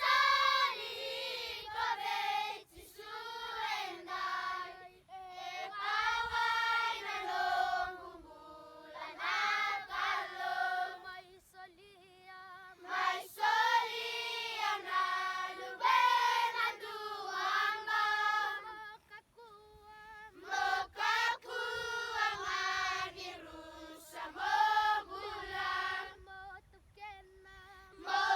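A group of children singing together as a choir in high voices, in sung phrases with short breaths between them.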